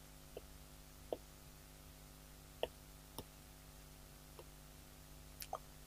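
Faint scattered clicks and taps of a pen on a writing surface while words are written, about six light ticks over a quiet room with a low steady hum.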